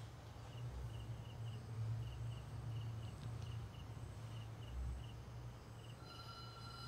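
Cricket chirping in short, evenly repeated pulses over a steady low hum. A steady high-pitched tone comes in near the end.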